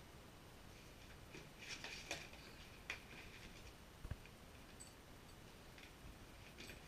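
Puppy splashing at the water in its bowl, which sits inside a bigger plastic tub: faint wet splashes in short bursts, with a sharp click about three seconds in and a soft thump about four seconds in.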